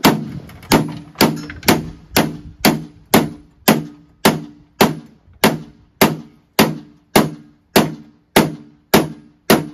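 Hammer blows on the steel stand of a chipper-shredder, about two strikes a second in a steady rhythm, each a clang with a short metallic ring. The steel corner of the folding stand is being beaten in so the stand stays put instead of flopping down.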